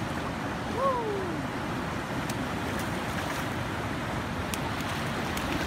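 Ocean surf washing steadily against the rocks, with one short voice sliding down in pitch about a second in.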